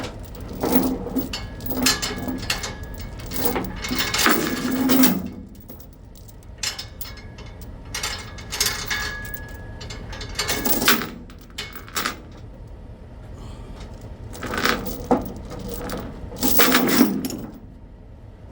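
Tie-down chains being handled while securing a load: irregular metal clanking and rattling in several bursts, with a short ringing now and then.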